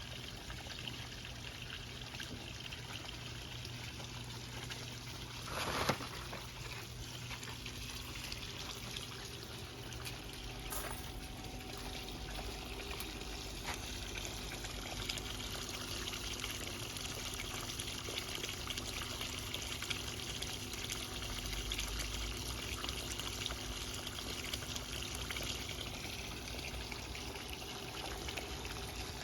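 Water from an above-ground pool's Flowclear waterfall pouring steadily into the pool, with a brief louder noise about six seconds in.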